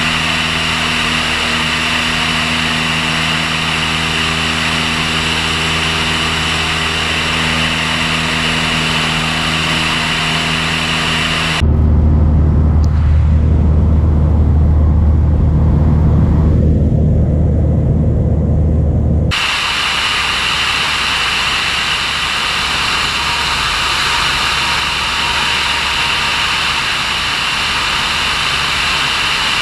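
Light aircraft's piston engine and propeller droning steadily in cruise, with wind rushing over an outside-mounted camera. For about seven seconds in the middle the sound switches to a deeper, muffled and louder drone heard from inside the cockpit.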